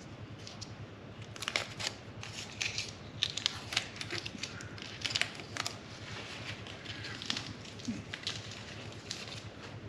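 Irregular metal clicks, scrapes and rattles of hand tools and parts being handled at the front of a Ford 5.0L engine during work to fit the timing cover seal and damper.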